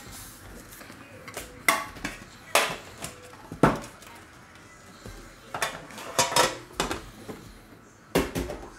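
Foil-wrapped trading card packs crinkling and a metal card tin clattering as the packs are handled and restacked, in short irregular bursts a second or so apart.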